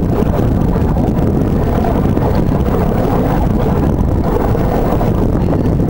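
Steady low rumble of wind buffeting the microphone, with a boat engine running underneath.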